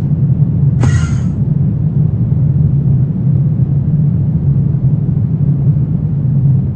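Low, steady rumbling drone of a dark horror ambience track, with a brief high, voice-like cry about a second in.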